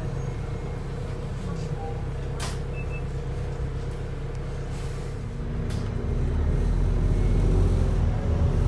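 Wright New Routemaster hybrid bus heard from inside the cabin, its diesel engine running steadily, then growing louder from about six seconds in. A single sharp knock comes about two seconds in.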